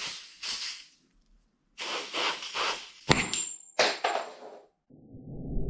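Short bursts of compressed air hissing from a blow gun pressed into a motorcycle brake caliper's fluid port, used to force out pistons seized by corrosion and wear. A sharp click sounds about three seconds in, followed by a thin whistle of air for about a second, and a low rumble builds near the end.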